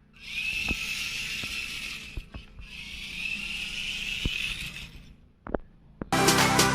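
Small 180-size brushed DC motor and its gears whirring in two runs of about two seconds each, with a steady high whine and a few clicks. Loud music with a beat comes in near the end.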